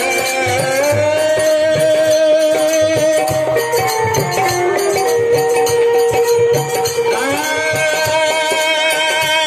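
Folk music: a held melody line that slides to new notes, over repeated drum beats and high jingling percussion.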